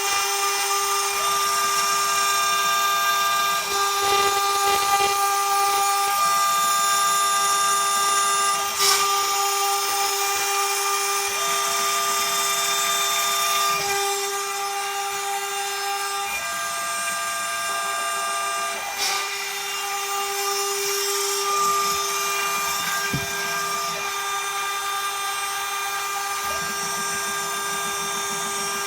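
Homemade CNC router's spindle whining steadily as it mills aluminium, with a hissing cutting noise. A second, higher tone comes and goes about every five seconds, and there are a few sharp clicks.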